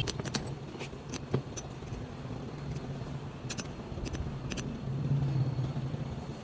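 Sharp metallic clicks and clinks, about ten scattered through the first five seconds, as tools and alternator parts are handled, over a steady low hum.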